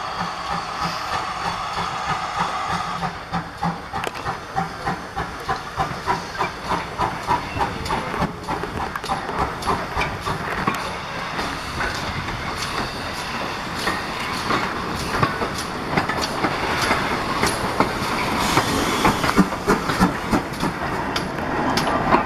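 GWR 28xx class 2-8-0 steam locomotive moving slowly, with a run of regular beats about two to three a second over a steady steam hiss, getting louder near the end as it passes close by.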